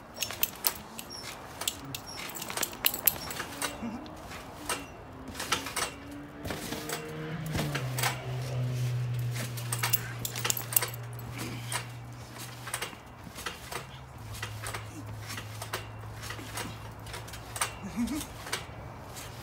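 Trampoline bouncing: a rapid, irregular run of clicks and metallic jingles from the springs and mat with each landing. From about eight seconds in, a steady low hum runs underneath.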